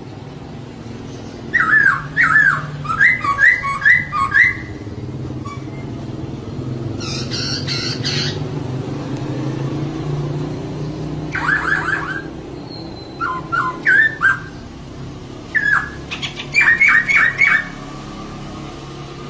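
Female poksay (laughingthrush) calling: several bursts of quick repeated chirping notes, with one harsh rasping call about seven seconds in, over a steady low hum.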